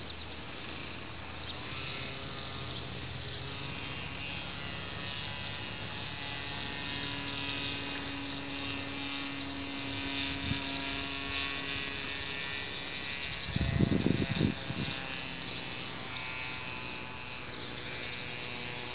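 A steady electric buzz made of several fixed tones, like a small motor running, with a short loud rumble about fourteen seconds in.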